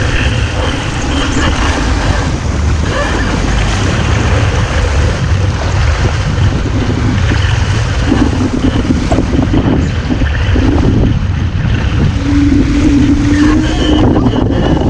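Wind buffeting the microphone of a camera mounted on a WASZP sailing dinghy, over the rush of water and spray along the hull as the boat sails. A faint humming tone comes and goes, strongest near the end.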